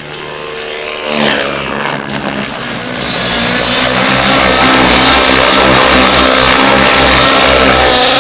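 Radio-controlled helicopter's engine and rotor spooling up, rising in pitch and getting louder over the first few seconds. It then runs loud and steady at flying speed with a high steady whine on top.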